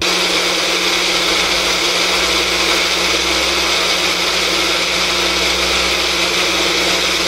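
Small personal blender motor running steadily at high speed, blending strawberries, milk and sugar into a shake. It starts abruptly, and a deeper hum joins about two seconds in.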